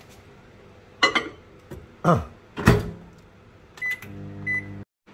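A microwave oven being loaded and started: a few sharp clacks as the bowl goes in and the door shuts, two short keypad beeps, then the oven running with a steady low hum that cuts off suddenly.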